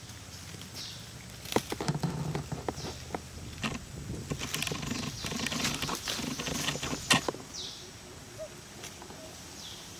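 Dry leaves and ground litter rustling and crackling under macaques shifting about, with a sharp snap about seven seconds in. A short falling high chirp recurs every second or two in the background.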